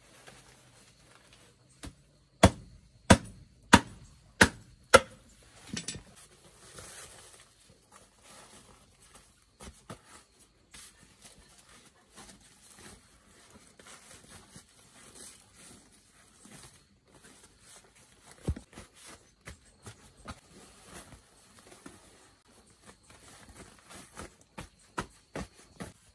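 Five sharp knocks in a row, about two-thirds of a second apart, then quieter scattered knocks and handling noise, with a few more light knocks near the end.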